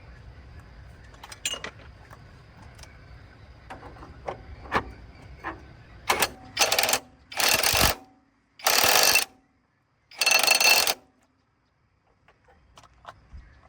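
Light metallic clicks of hand tools on a bolt, then an impact wrench fired in about five short bursts, each half a second to a second long, running the bolt down tight.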